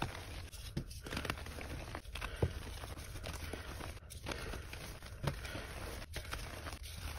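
Fingers crushing soft reformed chalk blocks into powder: a continuous crumbling crunch with frequent small sharp crackles as the pieces break apart.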